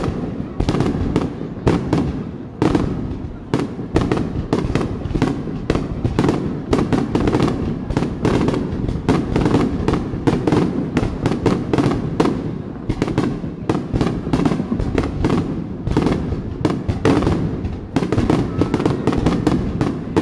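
Aerial fireworks shells bursting in a dense, continuous barrage, several booms and crackles a second, as in a fireworks-show finale.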